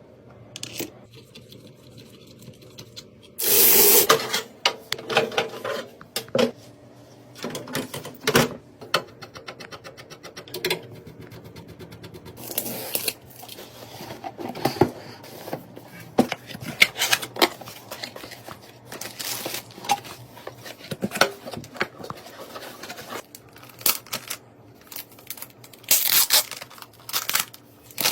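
Computer parts and packaging being handled during PC assembly: irregular clicks, knocks and scrapes, with a few short rustling bursts and a quick run of ticks near the middle.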